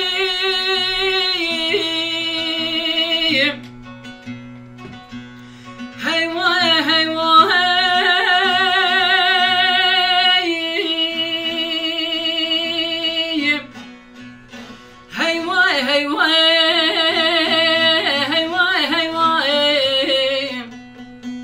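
A man sings a Kurdish song in long, ornamented phrases with wavering held notes, to his own saz (long-necked bağlama), which keeps a steady low drone under the voice. The voice drops out twice, about 4 and 14 seconds in, leaving the quieter saz between three sung phrases.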